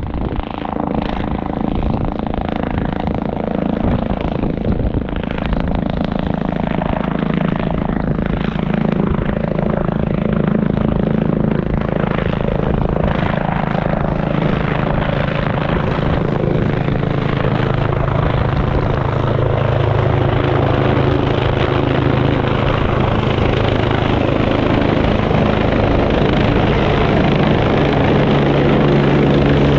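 Helicopter approaching, its rotor and turbine sound growing steadily louder as it closes in, with a thin high turbine whine joining about two-thirds of the way through.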